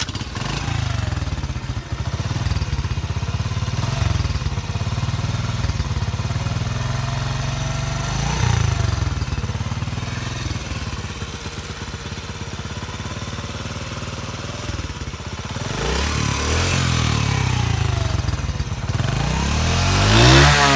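Honda CD70 (2022 model) 72 cc four-stroke single-cylinder motorcycle engine starting up and idling steadily. It is revved briefly about eight seconds in, then revved up and down several times in the last few seconds.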